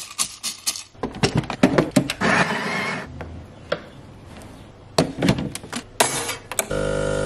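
Coffee beans clattering into an espresso machine's grinder hopper, then scattered knocks and clicks of handling the grinder and portafilter. Near the end the espresso machine's pump starts a steady hum as the shot begins.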